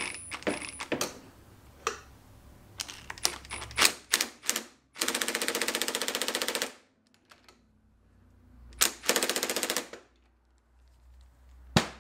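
Cordless impact driver on its lowest setting hammering in two bursts, one of nearly two seconds about five seconds in and a shorter one about nine seconds in, as it tightens the cartridge bolt into the bottom of a Yamaha YZ85's Kayaba inverted fork leg. Light clicks and knocks of tools and parts come before it, and a sharp knock near the end.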